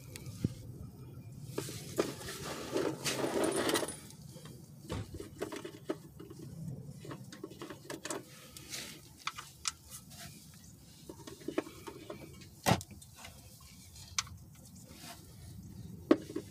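Handling and working noise under a car: scattered light clicks, taps and rustling, with a longer scraping rustle about two to four seconds in and one sharp knock about three quarters of the way through.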